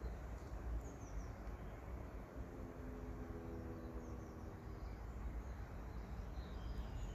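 Outdoor ambience: a steady low rumble with a few faint, short bird chirps scattered through it, and a faint steady hum in the middle.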